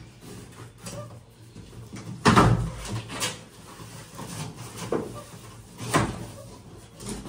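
A cardboard bicycle shipping carton being worked open by hand: cardboard scraping and knocking, with a loud thump a little over two seconds in and a few smaller knocks after.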